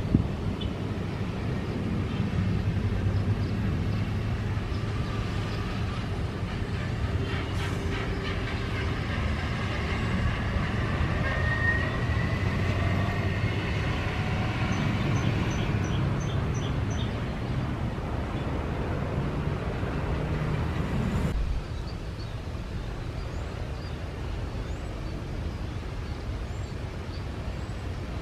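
Jet airliner engines running loud with a low rumble, and a faint whine rising in pitch about ten seconds in. The level drops abruptly about 21 seconds in to a quieter steady rumble.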